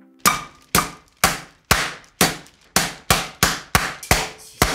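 A pork cutlet under parchment paper being pounded flat with the bottom of a metal skillet: about a dozen sharp smacks, each ringing briefly, speeding up from about two a second to nearly three.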